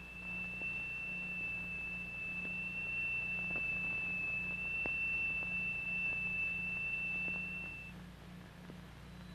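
A steady high-pitched tone from a triangular steel plate driven by a vibrating crystal attached underneath it, which makes its sand settle into a figure. The tone stops about eight seconds in, and a fainter, higher tone begins near the end. A low hum and faint clicks run beneath it.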